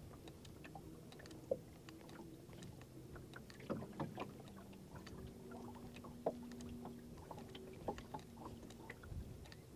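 Faint lapping and slapping of small waves against the hull of a small rowing boat, with scattered light knocks over a faint steady hum.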